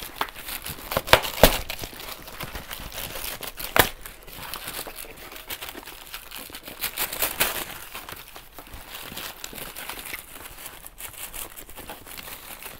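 Packaging being unwrapped by hand: irregular crinkling and rustling, with sharp clicks about a second in and again near four seconds in.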